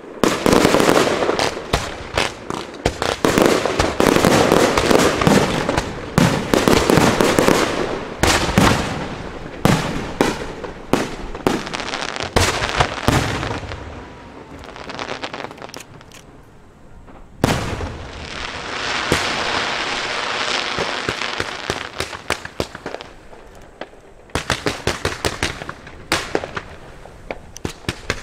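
Aerial fireworks shells launching and bursting in rapid, overlapping bangs that ease off about halfway through. A steady hiss follows for several seconds, then a quick run of sharp bangs near the end.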